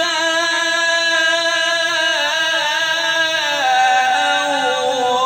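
A man's voice reciting the Quran in melodic tajweed style, drawing out one word into a long held note that wavers and steps down in pitch about three and a half seconds in.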